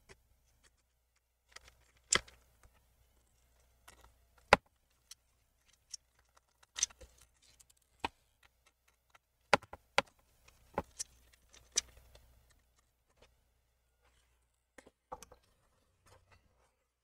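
A string of irregular, sharp little clicks and taps from a small Phillips screwdriver and fingers working the screws out of a laptop's bottom cover.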